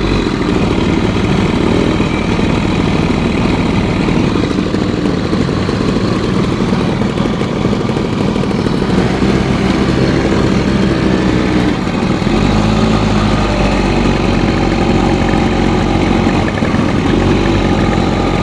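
ATV engine running steadily, its note shifting several times as the throttle changes.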